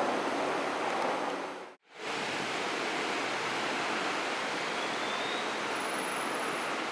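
Steady rushing noise of diesel locomotives running at a distance. The sound cuts out completely for a moment just under two seconds in.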